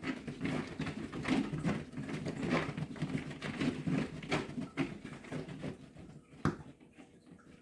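Cat exercise wheel spinning as a cat runs in it: a rolling rumble with a knock repeating about every half second, dying down after about six seconds. There is a single sharp click near the end.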